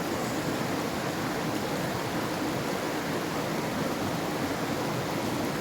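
Steady rush of a river's flowing water, an even hiss and rumble that holds constant throughout.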